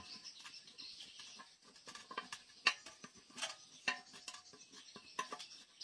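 Small clicks and scrapes of the Yamaha NMAX's plastic fuel pump assembly being pressed and turned into its seat in the fuel tank opening, with one sharp click a little under three seconds in.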